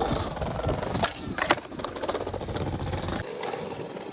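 Skateboard wheels rolling with a steady rumble, and two sharp clacks of the board a second or so in, the second the loudest; the rolling rumble thins out near the end.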